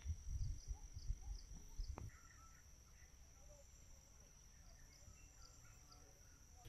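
Faint forest ambience: a steady, high insect drone with short, faint bird-like chirps repeating over it. Low thumps in the first two seconds, then it settles quieter.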